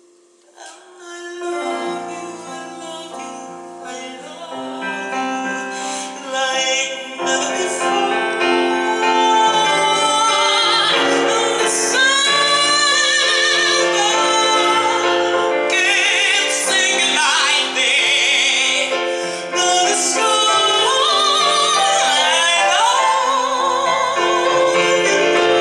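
A solo voice sings a ballad in a classical, operatic style with wide vibrato, accompanied by piano. It starts softly and builds to full voice by about a third of the way in.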